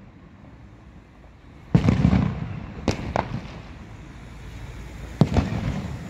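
Aerial fireworks bursting overhead: a loud bang just under two seconds in that rumbles on briefly, two sharp cracks about a second later, and another bang near the end.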